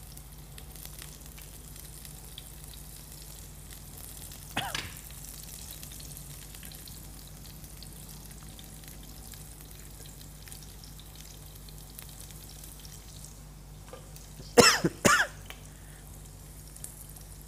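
Green chilli pieces frying in oil in a pan, a faint steady sizzle. A short vocal sound comes about four and a half seconds in, and a person coughs twice near the end, the loudest sounds here.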